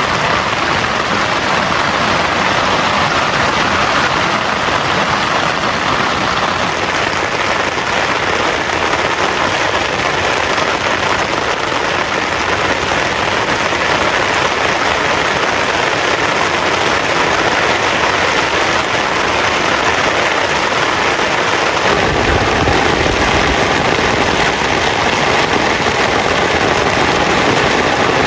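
Heavy rain falling, a loud, steady, dense hiss. About three quarters of the way through, a deeper rumble joins under it and carries on.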